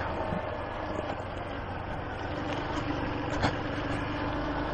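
Honda Fan 125 motorcycle's single-cylinder four-stroke engine running steadily through its stock exhaust while riding, with a brief click about three and a half seconds in.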